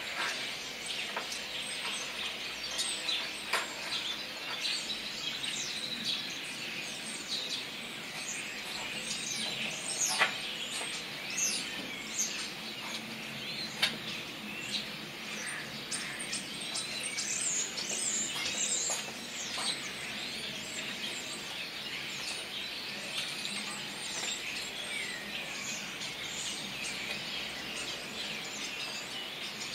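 A flock of common starlings chattering together: many overlapping whistles, chirps and squeaks in a dense, continuous din, with a few sharp clicks standing out now and then.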